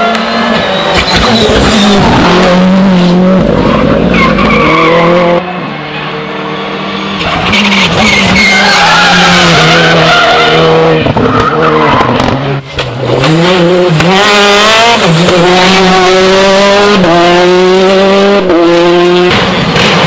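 R5 rally cars (a Ford Fiesta R5 and a Skoda Fabia R5) driven flat out, their turbocharged four-cylinder engines revving hard, dropping on the brakes and climbing again. In the second half the pitch rises in steps through a string of quick upshifts, with tyre squeal through the corners.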